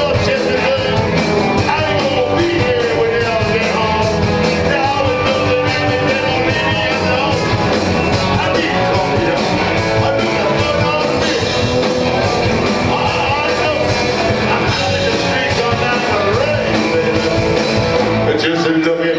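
Live rock band playing loudly: a male singer over electric guitars, bass and drums.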